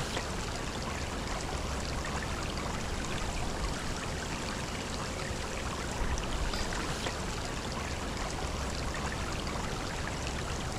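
Shallow, rocky creek running steadily over stones, a continuous babble of flowing water.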